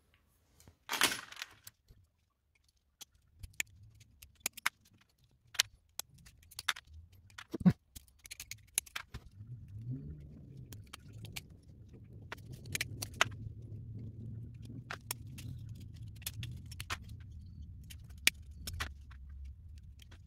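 Small metal clicks and jangles of split rings and single inline hooks being worked onto a resin lure with split-ring pliers, irregular and spread through the whole stretch. There is a louder rustle about a second in, and a low rumble under the clicks in the second half.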